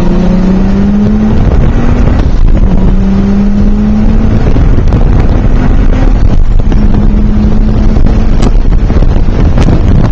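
Car engine heard from inside the cabin under acceleration, its note climbing in pitch, dropping back a couple of times and climbing again, over loud road and wind noise.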